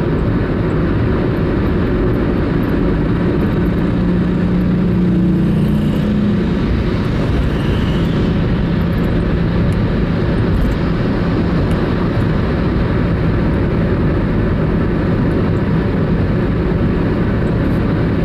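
Car interior noise on the move: a steady loud rumble of road and engine, with a low engine hum that rises a little in pitch a few seconds in.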